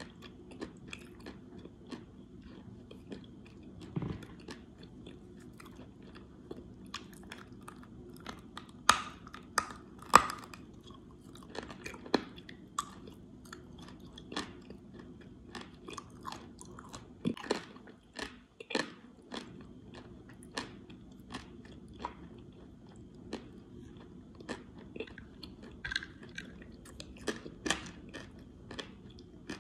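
A piece of clay being bitten and chewed: irregular sharp crunches, the loudest about nine and ten seconds in.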